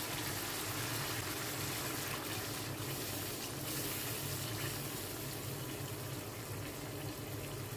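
Tomato-and-spice gravy simmering and sizzling steadily in a non-stick pan as whisked yogurt is stirred into it, over a low steady hum.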